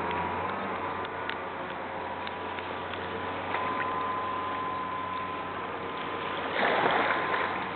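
Mercury 2.5-litre V6 engine of a Sea-Doo Islandia sport boat running steadily at speed across the water, a distant steady whine over a rushing hiss. A louder rush of noise comes near the end.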